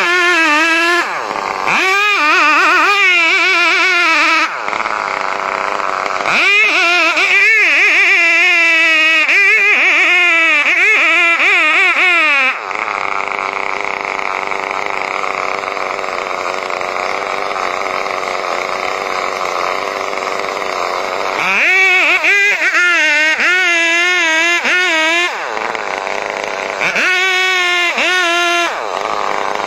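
Large long-bar chainsaw running at high revs as it cuts through a giant tree trunk, its engine pitch wavering up and down under load, with short breaks. For a stretch in the middle the pitch settles into a steadier, rougher drone.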